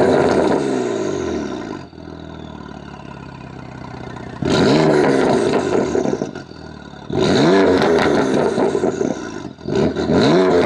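Exhaust of a 2015 BMW F80 M3's twin-turbo S55 straight-six, with VRSF midpipe, resonated downpipes and stock BMW mufflers, in Sport Plus, free-revved while parked. A rev dies back to idle at the start, the engine idles for a couple of seconds, then comes three quick revs about two and a half seconds apart, each climbing and falling back.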